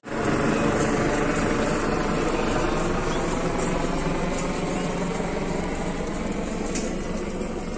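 A loud, steady mechanical drone of an engine or rotor that cuts in suddenly and slowly eases off.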